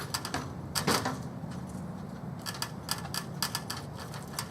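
A series of sharp clicks and light knocks, as of hard objects being handled. A few come near the start and about a second in, then a quicker run of them from about two and a half to three and a half seconds in.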